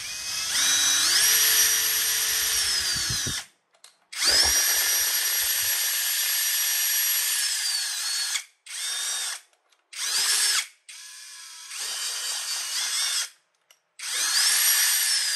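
A small electric power-tool motor, drill-like, run in about six bursts of a second to four seconds: each spins up with a rising whine and winds down with a falling one.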